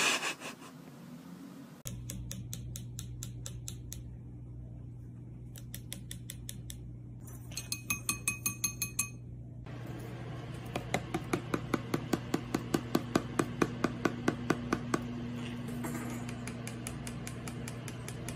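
Runs of quick, sharp taps on a hard surface, from a green-cheeked conure working at a tissue box and the countertop, over a steady low hum; the tapping is densest in the second half.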